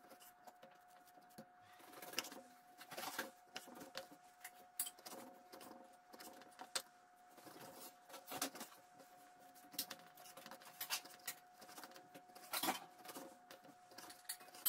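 Chef's knife cutting raw beef into cubes on a wooden cutting board: irregular sharp taps as the blade goes through the meat and meets the board, over a faint steady hum.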